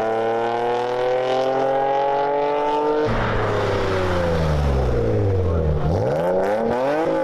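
Car engines revving hard. One engine's pitch climbs steadily for about three seconds. Then the sound changes abruptly to another engine whose revs drop and climb back up again.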